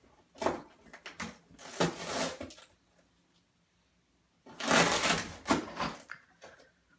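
Capuchin monkeys handling and rummaging in a toy tool bench: two bouts of clattering and rustling, one starting about half a second in and a louder one about four and a half seconds in.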